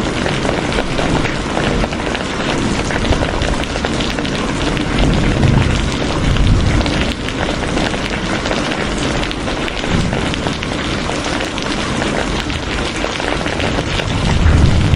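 Steady heavy rain, a dense pattering of drops, with low rumbling swells about five to seven seconds in and again near the end.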